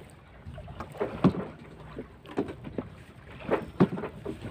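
Small wooden fishing boat rocking on the water: a handful of short, irregular knocks and slaps against the hull over a low, steady rumble.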